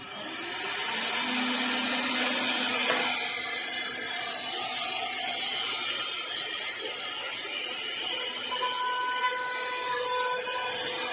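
CNC router spindle milling a door: a steady rush of cutting noise with a thin high whine on top, building up over the first second and then holding.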